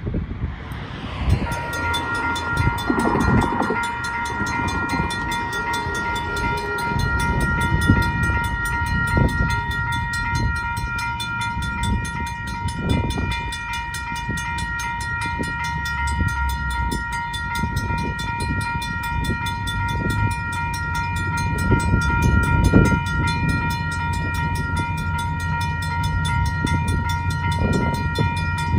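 Railroad crossing warning bell starts ringing about a second and a half in and keeps ringing steadily as the crossing signals activate and the gates lower, over a low rumble.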